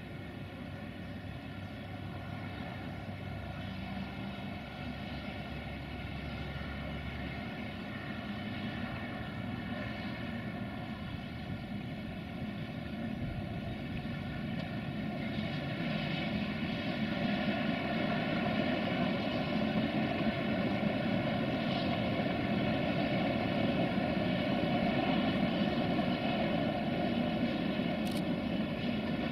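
Freight train with a CFR 060-DA (LDE2100, Sulzer-engined) diesel locomotive working, a steady engine rumble with a high whine laid over it, growing steadily louder as the train approaches. The whine is the whistling this locomotive is known for.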